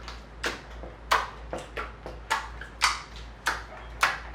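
Thick clear slime being squeezed and pressed by hand, giving a run of sharp clicks and pops, about two a second.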